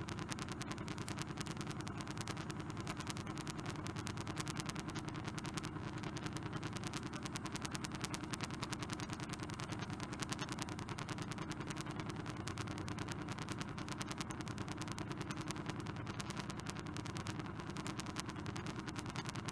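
An engine running with a rapid, even pulse, steady throughout.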